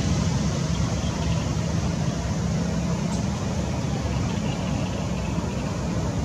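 Steady low engine rumble, like a vehicle idling, with an even hiss above it.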